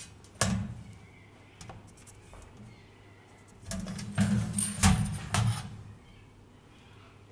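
A steel rule and marker handled on a sheet of galvanized steel over a metal bench: a sharp metallic clack about half a second in, then a cluster of clanks and knocks between about four and five and a half seconds as the rule is lifted and set down along another edge.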